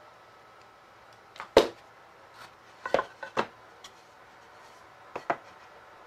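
Pneumatic stapler firing 1.5 inch galvanized staples into the glued pine corners of a box frame: a series of sharp shots in quick groups, a pair, then three or four, then another pair, the loudest about one and a half seconds in.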